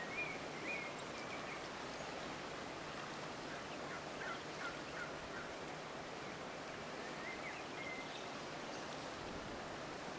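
Steady, faint outdoor hiss with a few small bird calls over it: a short warbling call near the start, a quick run of four or five chirps about four seconds in, and another short call near the eighth second.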